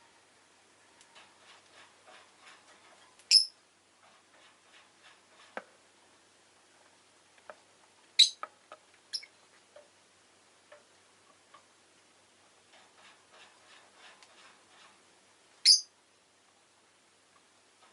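Peach-faced lovebird giving three short, sharp, high chirps, about three, eight and sixteen seconds in. Soft scattered clicks and ticks between the calls.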